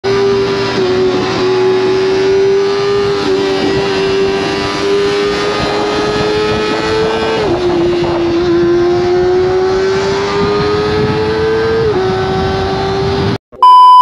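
Kawasaki ZX-25R's high-revving inline-four engine running through an Akrapovic exhaust under way, its pitch climbing slowly and dropping sharply twice, about halfway and near the end, with quick-shifted upshifts. Near the end the engine sound cuts off and a loud steady test-tone beep follows.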